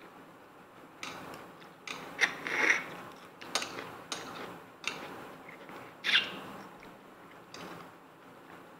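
Close-up eating sounds: irregular sharp clicks and crackles of a lobster's shell being picked apart by hand, mixed with chewing.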